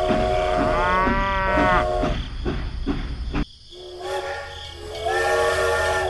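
Steam train sound effect: a steady whistle over rhythmic chugging clicks, then the sound cuts off abruptly about three and a half seconds in and a second whistle tone starts up.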